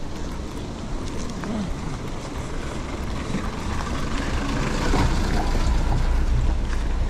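Wind rumbling on an action camera's microphone while riding, with the hiss of rushing water growing louder toward the end.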